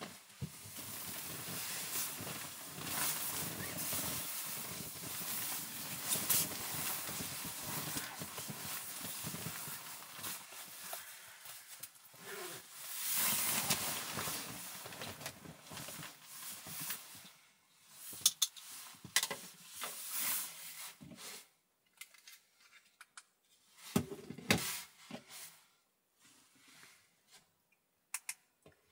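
Nylon sleeping bag and down jacket rustling steadily as a person climbs into the bag and settles down. In the second half the rustling drops away to a few short clicks and brief rustles as he shifts and handles a small object.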